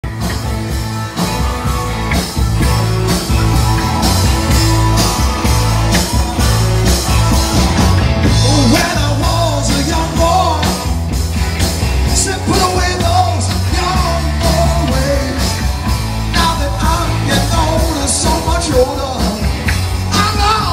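Live rock band playing, with electric guitars, bass and drums, heard loud and close. A voice sings over the band from about eight seconds in.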